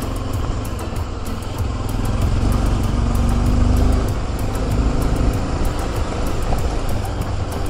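Motorcycle engine running while under way, with a heavy, steady low rumble.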